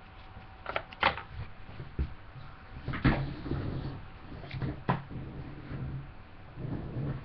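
Handling noise close to a webcam microphone: a run of knocks and bumps, the loudest about one and three seconds in, with muffled rubbing between them.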